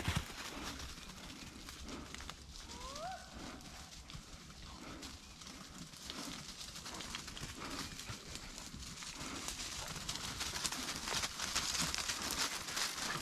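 Hunting hounds moving through dry leaf litter, a rustling crunch of leaves and twigs that grows louder toward the end as the dogs come close. About three seconds in there is one short rising whine.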